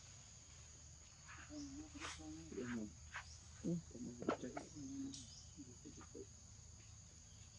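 A steady, faint, high-pitched drone of insects, with indistinct low human voices talking in the background from about a second in until about six seconds in.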